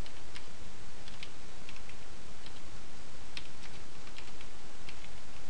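Computer keyboard being typed on: a dozen or so separate key clicks at an uneven pace, over a steady background hiss.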